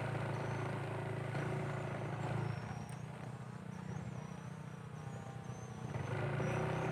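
A vehicle engine running at a steady low hum, easing a little midway and picking up again near the end, with faint high-pitched chirps over it.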